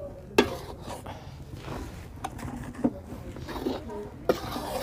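Steel spatula scraping and stirring dry wheat flour in a steel kadhai as the flour is dry-roasted, with a few sharp clanks of metal on the pan. The loudest clank comes about half a second in.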